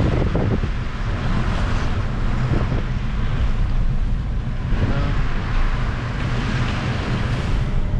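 Steady road noise inside a moving car: a low rumble of engine and tyres with a hiss from tyres on a wet, slushy road.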